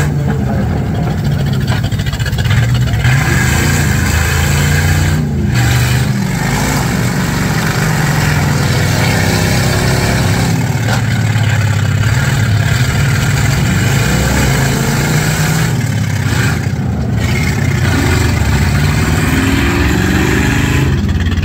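Several gutted V8 demolition derby cars' engines running hard and revving together: a continuous loud engine din.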